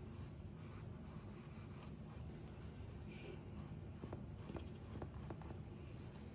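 Paintbrush bristles stroking paint onto a stretched canvas, a quiet brushing sound, with a few light ticks in the second half.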